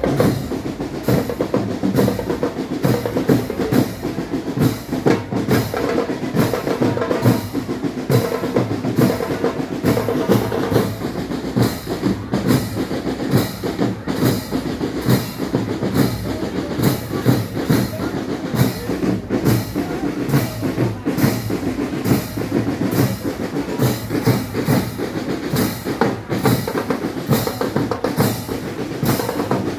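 A band playing music with a steady beat of bass and snare drums to the fore, over sustained pitched instruments.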